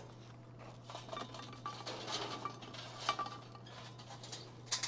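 Hot charcoal briquettes clinking and tapping onto a cast iron Dutch oven lid as they are tipped from a metal chimney starter. There are scattered light clinks with a brief metallic ring, and a sharper clink near the end.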